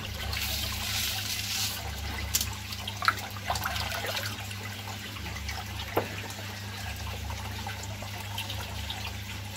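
Water splashing and bubbling in a small aerated fish tub as a hand works in it, with a brighter hiss in the first second or two and a few sharp clicks. A steady low hum runs underneath.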